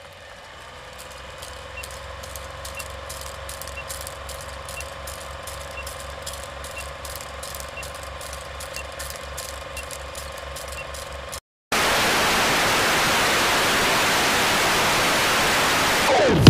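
Faint, regular, rapid mechanical ticking over a steady low hum, then a sudden brief dropout, followed by loud, steady static-like hiss.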